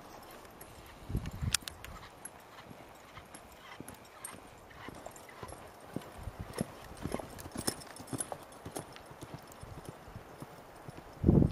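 Hoofbeats of a two-year-old reining mare jogging on a sand arena under saddle: soft, regular footfalls. A brief louder low thump comes near the end.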